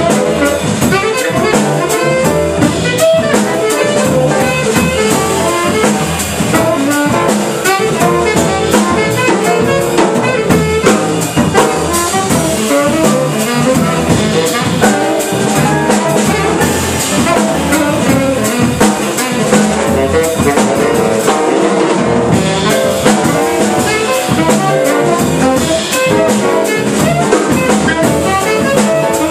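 Small jazz group playing: a saxophone leads over upright double bass, electric guitar, piano and drum kit with cymbals.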